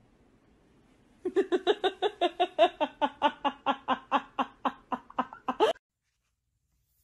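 A person laughing in a quick, steady string of 'ha' pulses, about five a second. It starts about a second in and cuts off abruptly about four and a half seconds later.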